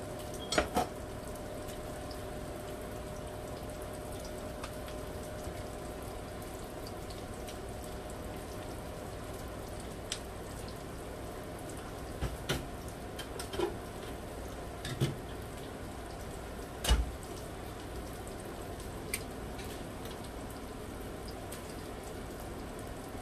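Breaded tilapia fillets frying in shallow oil in a skillet: a steady sizzle with a few sharper pops and knocks scattered through it.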